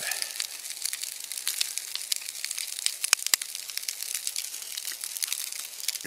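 Food sizzling and crackling in a frying pan on a Trangia stove: a dense, even crackle, with a couple of sharper pops a little after the middle.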